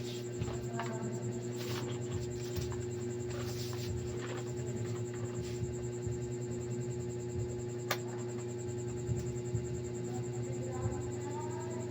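A steady electrical or motor hum with a few light clicks and taps, one sharper click about eight seconds in.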